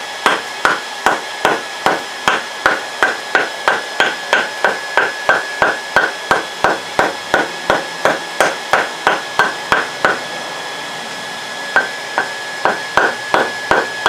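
A wooden mallet beats a red-hot steel bar over the anvil horn to bend it into a ring, striking about three times a second. The strikes stop for about two seconds near the end, then start again. A steady high hum runs underneath.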